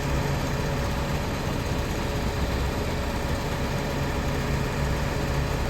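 Livestock feed mixer grinding cattle feed, a steady mechanical drone with a constant low hum.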